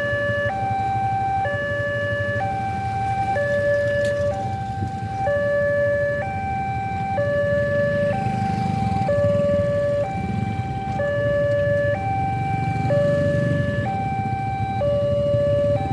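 Railroad level-crossing warning alarm sounding its steady two-tone signal, a lower and a higher note alternating about once a second, over the low running of motorcycle engines idling at the lowered barrier.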